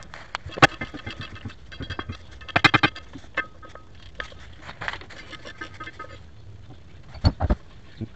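Socket ratchet clicking in short bursts of quick strokes while loosening the driveshaft bolts on a 2000 GMC Jimmy, followed near the end by two dull metal knocks in quick succession.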